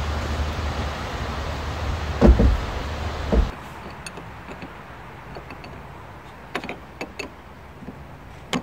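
A couple of dull thumps over a steady low rumble, then after a break a few light metallic clicks of a wrench tightening a battery terminal clamp.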